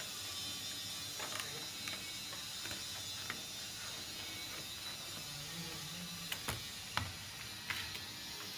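Scissors snipping through a printed PVC ID-card sheet: irregular sharp clicks and snips, a cluster of them from about six seconds in, over a steady hiss.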